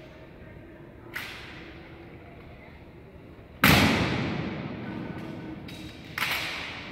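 Ceremonial honor guard drill impacts. There is a light tap about a second in, then a sharp, loud impact about halfway through that rings out with a long echo, and a second, smaller impact near the end that also echoes.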